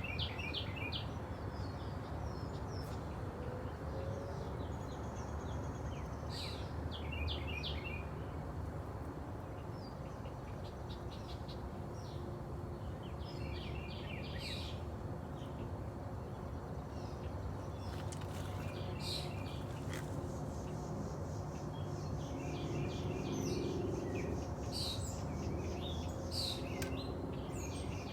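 Small birds chirping in short phrases of quick repeated notes, recurring every few seconds, over a steady low background rumble.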